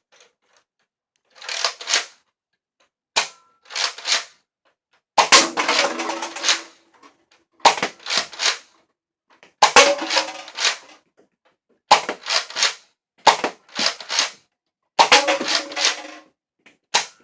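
Nerf Rival XVII-3000 blaster being fired over and over, about nine times. Each shot is a cluster of sharp clacks from pumping and firing the foam balls, and a few shots are followed by a longer clatter as the balls hit plastic cups.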